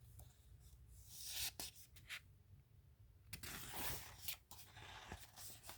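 Faint rustle and scrape of a paper book page being turned, in two short bursts with a few light clicks: one a little over a second in, and a longer one about three and a half seconds in.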